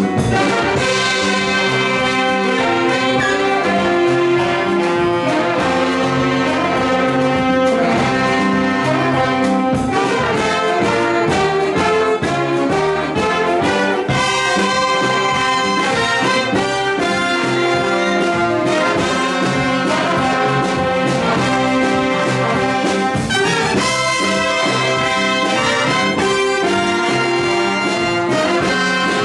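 A jazz big band playing live in full ensemble, with trumpets, trombones and saxophones sounding together in held chords over a steady beat.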